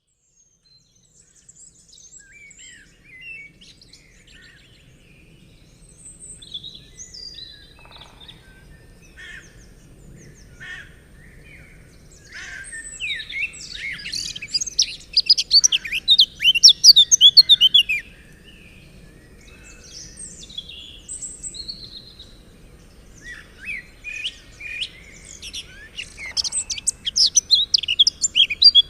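Birds chirping and singing: scattered calls that build to two loud, dense bursts of rapid chirps, one about halfway through and one near the end.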